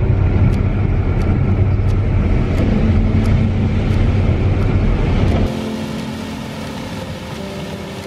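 CLAAS combine harvester running while it cuts and threshes corn, heard from inside the cab as a steady low rumble with a faint tick about twice a second. About five and a half seconds in, the rumble cuts off abruptly and gives way to a quieter sound with held steady tones.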